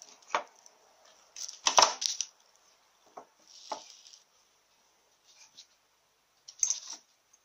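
Short metallic clicks and clinks of a Powerglide front servo piston and hand tools being handled while its sealing ring is changed, the loudest clatter about two seconds in.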